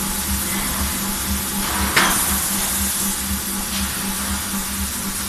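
Industrial machinery running on a forging line's roller conveyor carrying a hot steel bar: a steady hiss over a low hum that pulses a couple of times a second. About two seconds in comes a single sharp burst of noise, the loudest sound here.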